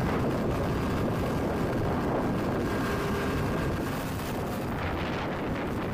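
Steady rushing and rumbling noise: water pouring from a C-130 Hercules' MAFFS discharge nozzle onto the tarmac, with a faint steady hum of aircraft machinery under it.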